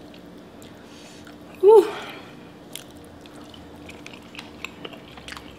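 Close-miked chewing and wet mouth clicks of a person eating a mouthful of pasta. About two seconds in there is one short, loud vocal "mm".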